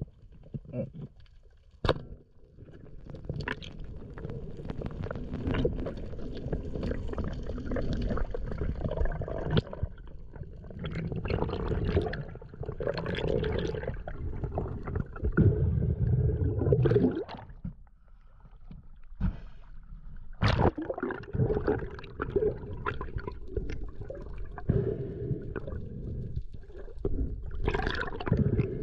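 Water sloshing and gurgling in irregular swells, with a few sharp knocks.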